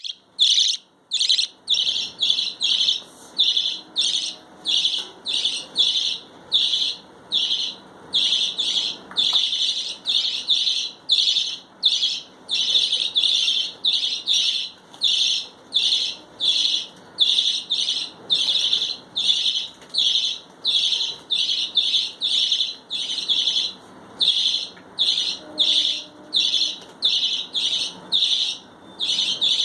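Budgerigars chirping: an unbroken run of short, high calls, about two a second.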